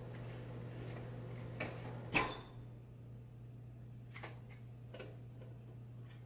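A few light clicks and knocks of kitchen things being handled, the loudest about two seconds in, over a steady low hum.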